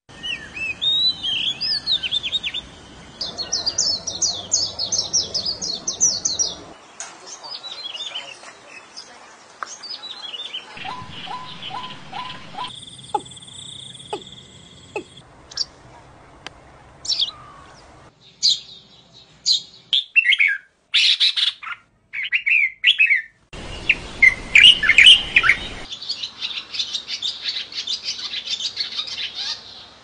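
A rapid succession of different birds' songs and calls: chirps, trills and whistled phrases, with an abrupt change to a new bird every few seconds.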